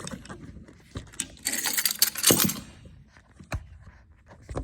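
Handling noises: a jingling rattle, densest from about a second and a half in for about a second, with scattered sharp clicks and light knocks.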